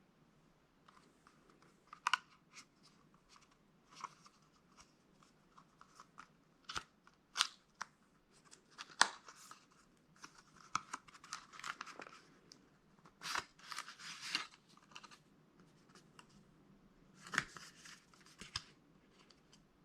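Smartwatch packaging handled by hand: scattered sharp clicks and taps with short bursts of rustling and crinkling, the busiest stretches a little after ten seconds in, around fourteen seconds and near the end.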